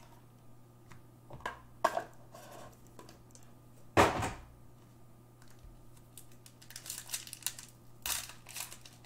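Trading-card box and foil packs being handled: scattered taps and clicks, a loud knock about four seconds in, then crinkling and tearing of a foil pack wrapper near the end.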